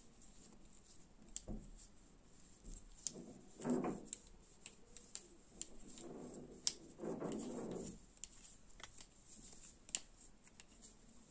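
Metal knitting needles knitting stitches in chunky T-shirt yarn: faint scattered clicks of the needles against each other, with soft rubbing of the yarn between them.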